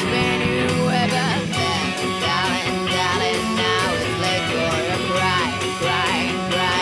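Rock band music with guitars, a lead line bending and wavering in pitch over a steady drum beat.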